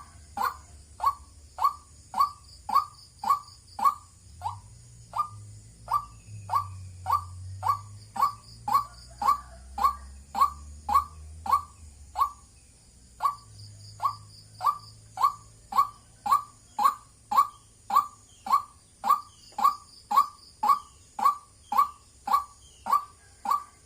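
White-breasted waterhen calling a steady, repeated 'wak', a little under two short notes a second, with brief breaks about four and thirteen seconds in.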